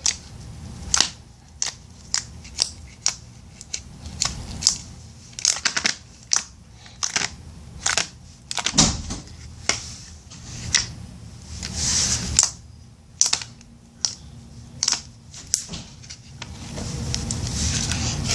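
Slime being squeezed and poked by hand, giving irregular sharp sticky clicks and pops, one or two a second, with a longer, softer squish near the end.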